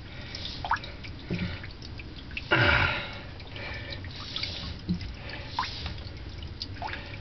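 Water dripping irregularly from a boat's PSS dripless shaft seal while its stainless rotor face is sanded with wet-and-dry paper, with one louder brief rush of noise about two and a half seconds in.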